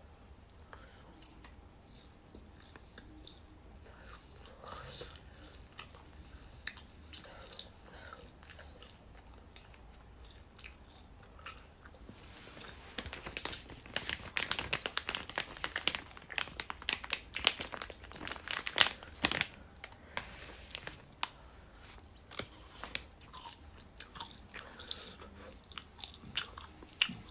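A person chewing a latiao, a spicy gluten strip, with quick crunchy clicks of the mouth. The chewing is light and sparse at first, turns loud and dense about halfway through, then eases off near the end.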